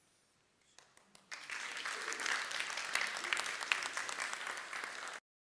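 Congregation applauding: a few scattered claps, then full applause from about a second in, which cuts off abruptly near the end.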